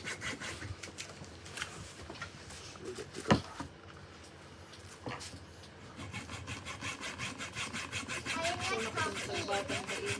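Saw cutting through bamboo in quick, even back-and-forth strokes; the sawing pauses in the middle, where a single sharp knock of wood is heard, then starts again.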